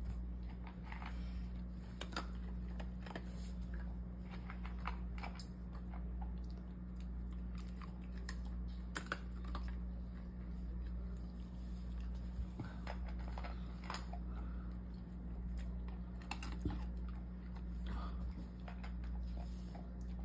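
Beagle eating dry kibble from a stainless-steel bowl: irregular crisp crunches and clicks of the pellets being bitten and picked from the bowl, over a steady low hum.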